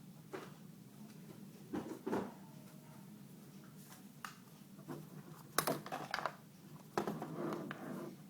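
Hands handling a Canon 50D DSLR body: a few sharp clicks and knocks of its parts being worked, with short rustling handling noise between them.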